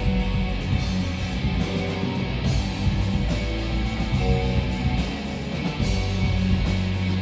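Rock band playing live, an instrumental passage: electric guitars and bass over drums, with no singing.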